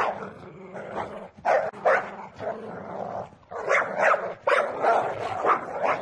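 Dog barking repeatedly, about eight barks, several coming in quick pairs.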